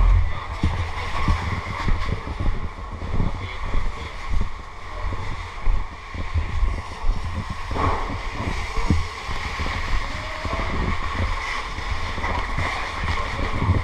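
A steady engine running, with gusty low rumbling from wind and handling on the microphone.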